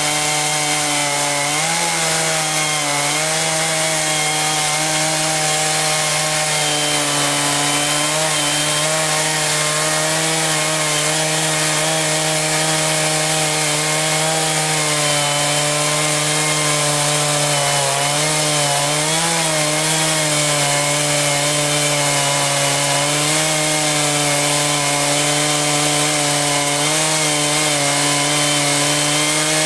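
Small sawmill running steadily while its saw cuts through a log into boards. The machine's pitch sags briefly a few times as the cut loads it.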